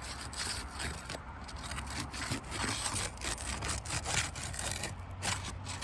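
Asphalt roof shingle's seal strip being broken loose from underneath: a run of irregular, rough scraping strokes, several a second.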